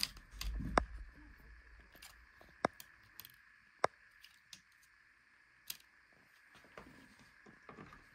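Sharp, separate small clicks and taps of hands working the ribbon-cable connectors on an LCD TV's panel board, about five in all and spread out, with a short low rumble in the first second and a faint steady tone underneath.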